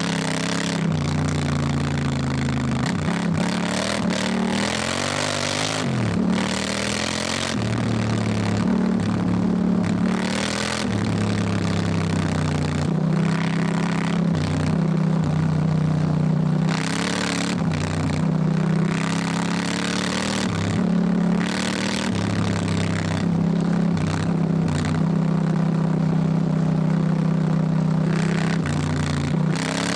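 Honda Africa Twin motorcycle's parallel-twin engine running under changing throttle, its note stepping up and down repeatedly, with frequent bursts of rushing noise over it.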